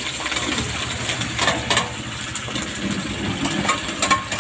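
Sliced green chillies sizzling and spattering as they are scraped from a steel plate into hot oil in a kadai, with the spatula clicking against the plate. A steady low rumble runs underneath.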